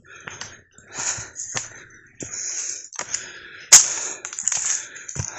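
Footsteps crunching on a dry, stony hill path, irregular, with a sharp click a little under four seconds in, picked up on a phone's built-in microphone.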